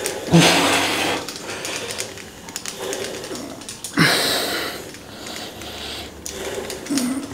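A person breathing out hard three times, about four seconds apart. Each breath opens with a short grunt and fades over about a second, like a lifter's breathing through repetitions of a set.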